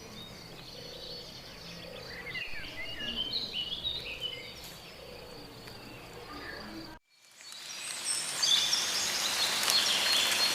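Small birds chirping over a faint steady hiss. About seven seconds in, the sound cuts out for a moment and comes back louder, with denser high chirping over a stronger hiss.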